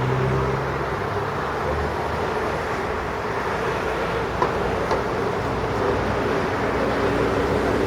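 Steady road traffic noise with a low hum, and two small clicks about four and a half and five seconds in.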